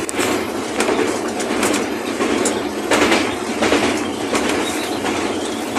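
Train wheels running over the rails of a railway bridge, heard from the locomotive cab: a steady rolling rumble with short, irregular clacks from the rail joints.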